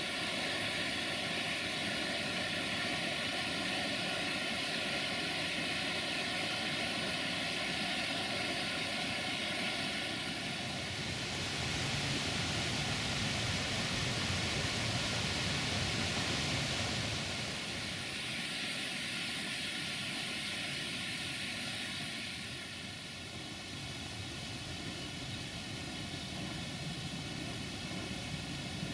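Steady rushing of falling water and river current, an even hiss with no distinct events. It grows brighter and a little louder for several seconds in the middle, then drops back slightly.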